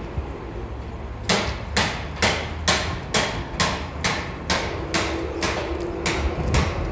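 Hammer blows on metal: about a dozen evenly paced strikes, a little over two a second, starting about a second in.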